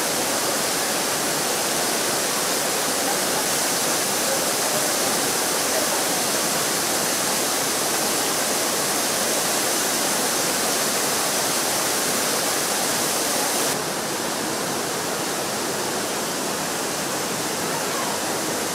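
Düden Waterfall pouring: a steady, heavy rush of falling water, dropping slightly in level about fourteen seconds in.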